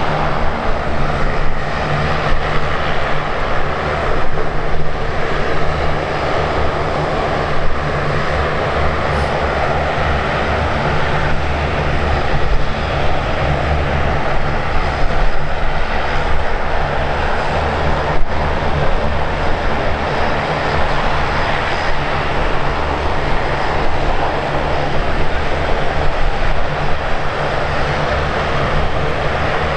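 Airliner engines running loud and steady for the whole stretch, a dense rushing noise with a steady low hum underneath.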